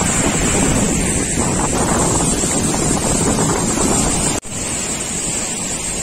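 Waterfall's rushing water, a loud, steady noise with no pitch. It cuts out for an instant a little over four seconds in, then carries on slightly quieter.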